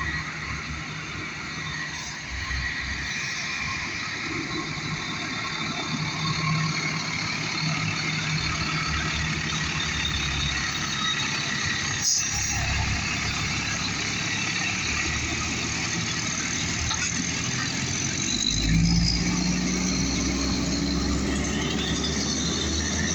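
Fire truck engine running steadily, then revving up and getting louder a few seconds before the end.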